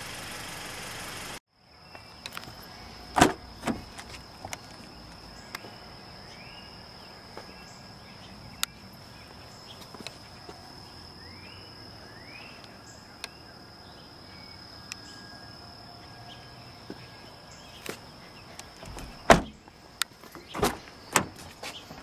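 Car doors of a 2012 Mazda3 hatchback being handled, giving several clunks and knocks, the loudest about 3 seconds in and a cluster near the end, against a steady high insect drone and a few faint chirps. At the very start a car engine runs steadily for about a second and a half and cuts off suddenly.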